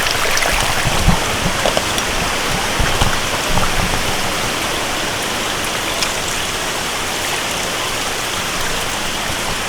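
Rushing water of a rainforest stream and waterfall, a steady even wash, with a few low knocks in the first few seconds.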